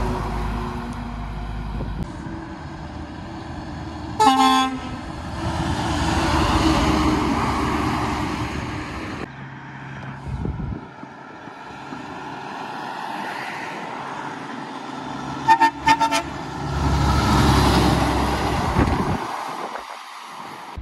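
Heavy trucks passing close by, each a swelling rush of engine and tyre noise, with air-horn toots: one short blast about four seconds in and a quick run of several toots around sixteen seconds, as the next truck-and-trailer approaches and goes past.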